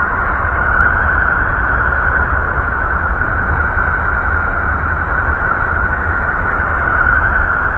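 Steady space-ambience drone presented as the sound of the planet Mercury: a continuous deep rumble under a hissing, wind-like band, with no change.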